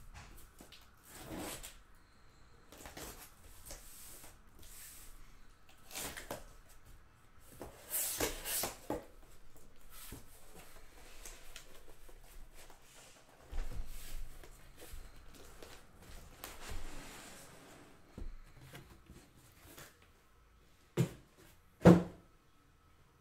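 Cardboard boxes of basketball cards being handled and pulled from their case: intermittent sliding, scraping and rustling, with a louder stretch of scraping about a third of the way in and two sharp knocks near the end.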